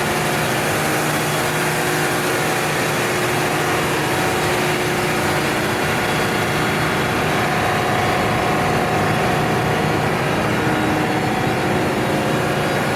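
Caterpillar G3512 V12 gas engines driving generators, running at a steady speed: a loud, even engine sound with several steady whining tones over it.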